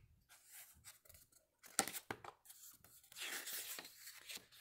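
A paper page of a picture book being turned by hand: a few light clicks, then a soft rustling swish a little past halfway.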